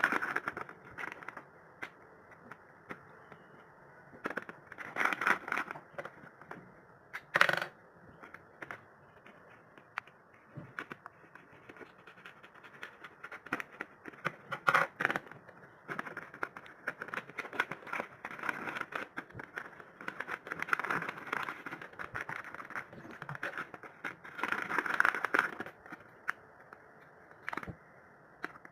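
Packaging being handled and opened by hand: irregular rustling, scraping and small clicks, with one sharp knock about seven seconds in.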